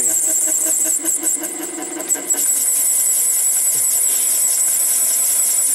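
Mini lathe running at slow speed while a thin parting blade feeds into a spinning metal ring, a steady high whine under the cut. A short spray of WD-40 goes onto the cut in the first couple of seconds.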